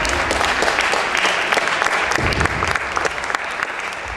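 Spectators applauding a point in a badminton match, many hands clapping at once and easing off slightly near the end.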